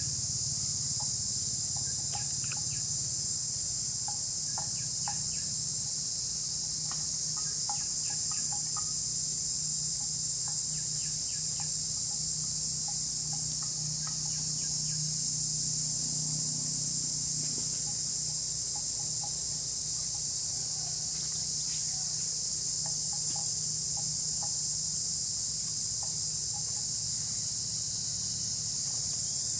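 Steady, high-pitched chorus of insects that does not let up, with scattered short bird chirps and a low steady hum beneath.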